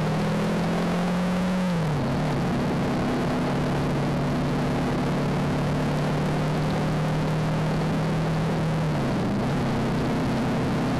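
Motorcycle engine running steadily while riding, with constant wind and road noise. Its pitch falls about two seconds in and dips again near the end.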